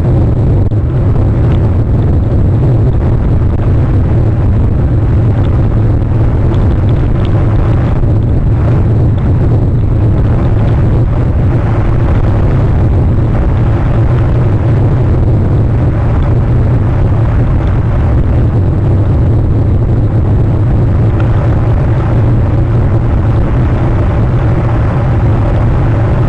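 Steady, loud low rumble picked up by an outdoor webcam microphone, unchanging in level, with no distinct calls or knocks.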